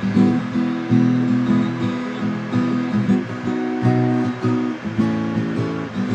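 Background music: a strummed acoustic guitar playing chords that change about once a second.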